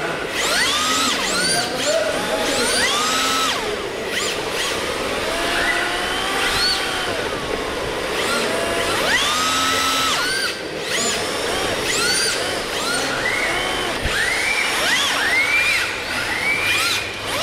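Electric motors of RC drift cars whining, their pitch rising and falling over and over as the throttles are blipped and released, several cars at once.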